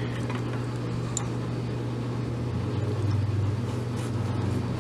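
Steady low background hum with a faint click about a second in, swelling slightly past the middle.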